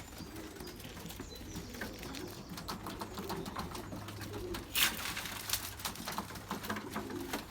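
Racing pigeons cooing in a low, wavering murmur, with one short sharp noise about five seconds in.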